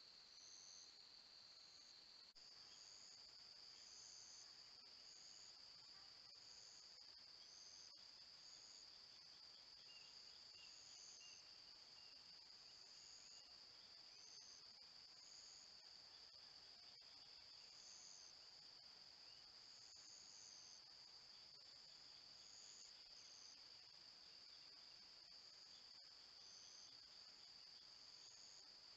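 Faint, steady high-pitched insect chorus, with short higher calls coming in at irregular intervals over the top. The chorus shifts slightly in pitch about two seconds in.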